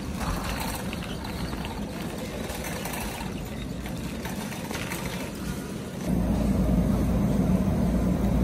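Shopping cart being pushed across a store floor, its wheels giving a steady rolling rattle. About six seconds in it cuts to a louder, lower steady hum.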